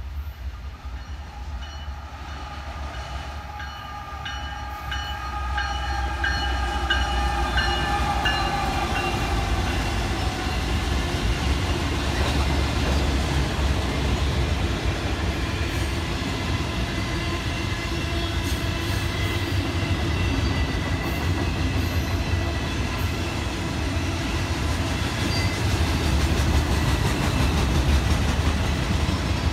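Freight train passing: diesel locomotive rumble and steel wheels on rail, growing louder about five seconds in and then staying loud. A held multi-note tone sounds over the first several seconds and drops in pitch around eight seconds in.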